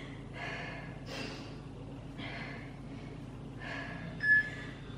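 A woman breathing hard after squats: four heavy breaths about a second apart. Near the end comes a short, high electronic beep.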